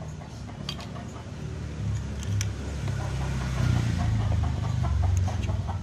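A low engine rumble that grows louder over the few seconds, with a few light clicks and taps from handling the plastic pipe.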